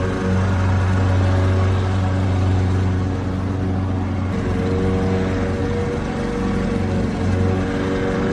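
Lawnmower engine running steadily with a low, even drone, its tone shifting slightly about four seconds in.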